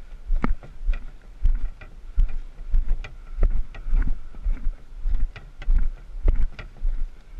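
Footsteps on a dirt and rock trail, about two a second, carrying a canoe overturned on the shoulders. Each step is a low thud with a sharp click, and a low rumble runs under them. The sound is heard from under the hull.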